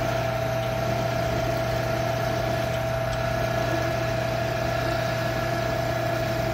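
Small metal lathe running steadily while a drill bit in the tailstock chuck is fed slowly into the end of a spinning shaft, with a steady whine and low hum from the lathe's motor and drive.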